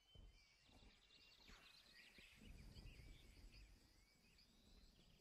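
Near silence: faint background with distant birds chirping and a low rumble.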